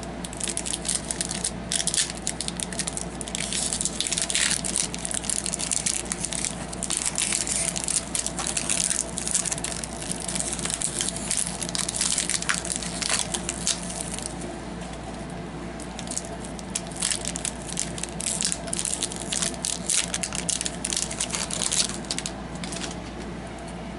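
A hockey card pack being opened by hand, its wrapper crinkling and crackling irregularly and densely at first, thinning to scattered crackles about halfway through.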